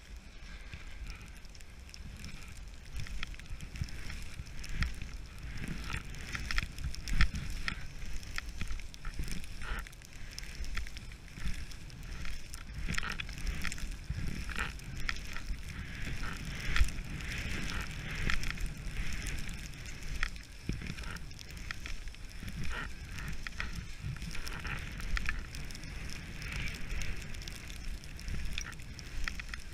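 Skis scraping and hissing over packed snow on a downhill run, with a steady crackle and swells at each turn, heard close from a camera worn by the skier. Wind rumbles on the microphone underneath.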